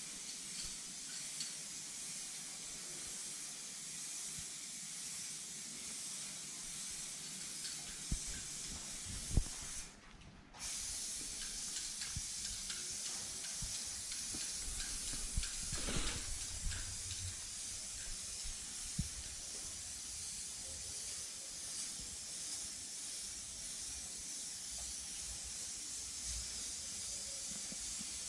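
Aerosol spray-paint can hissing steadily as a wall is painted, with a few scattered knocks.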